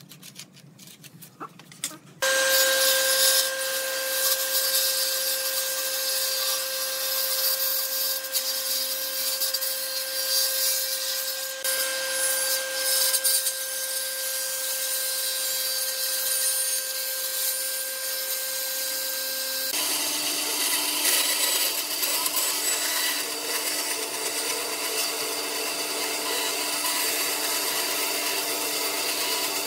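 A few light knocks of boards being handled, then a stationary woodworking machine starts running with a steady whine about two seconds in. About two-thirds through the sound changes to a band saw running and cutting through a pine board panel.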